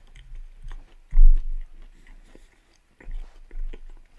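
A man chewing food close to a microphone: a run of small wet clicks and smacks. A dull low bump about a second in is the loudest sound, with two smaller ones near the end.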